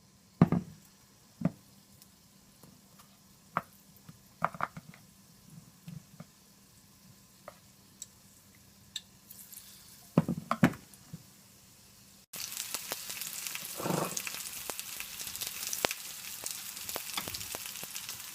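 Scattered sharp knocks and taps of kitchen handling, then from about twelve seconds in, battered onion rings deep-frying in hot oil, a dense steady sizzle and crackle that starts abruptly.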